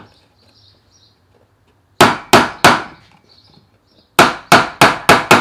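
Hammer driving small nails into a small wooden box: three blows about two seconds in, then a quicker run of five blows near the end.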